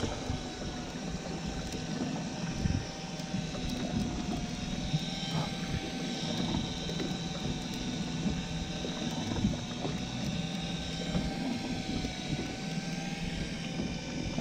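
Electric deep-drop fishing reel winding in braided line with a fish on: a steady motor whine over a low, rough rumble of boat and wind noise.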